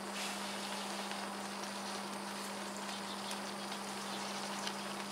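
Coleman F1 gas stove burner running steadily under a mess tin of pasta: a constant hiss with a steady low hum beneath it.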